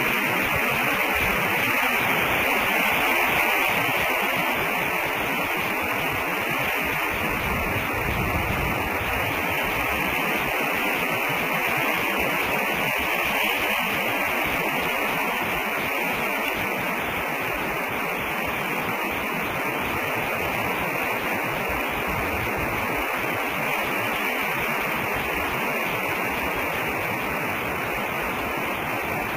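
Steady hiss of static with a constant high-pitched band in it, and no bird calls standing out.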